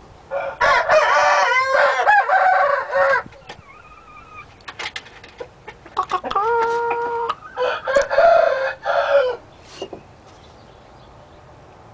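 Hybrid red junglefowl × domestic rooster crowing: two long crows of about three seconds each, one just after the start and one about six seconds in, with a short softer call between.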